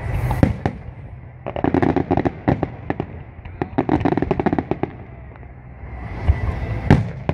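Aerial fireworks display: shell bursts and bangs with two dense runs of rapid crackling pops, and one louder bang near the end.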